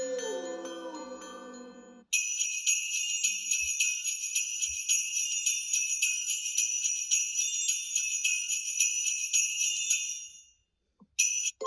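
Google Pixel 7a ringtone: a bright, high jingling like sleigh bells, pulsing quickly and evenly, lasting about eight seconds and then cutting off. Before it, the previous ringtone fades out with a falling pitch.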